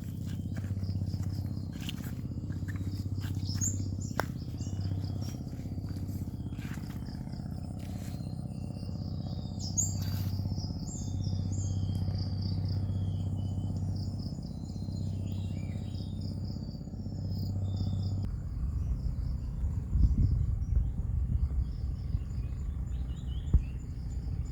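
Tropical forest morning chorus: insects trilling steadily and birds chirping, over a low steady hum; about three quarters through, the hum gives way to a rough low rumble with a few knocks.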